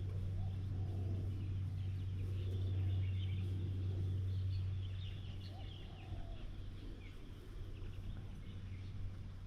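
Several birds chattering and calling in quick, high notes, busiest through the middle, over a steady low hum.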